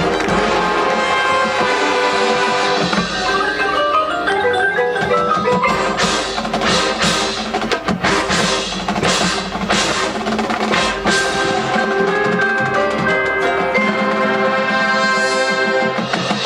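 Marching band playing, with the percussion prominent: quick runs of pitched notes about three seconds in, then a stretch of sharp drum hits under sustained band chords.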